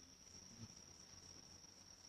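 Faint, steady high-pitched insect trill with a slight rapid pulse.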